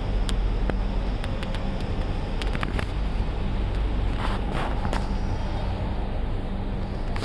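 Steady low background rumble with a faint hum, broken by a few light clicks and a couple of brief hissy rustles about four to five seconds in.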